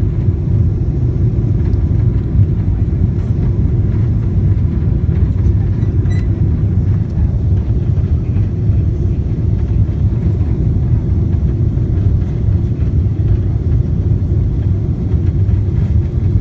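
Steady low rumble of a Boeing 777-200's engines and the airflow, heard inside the cabin on final approach to landing.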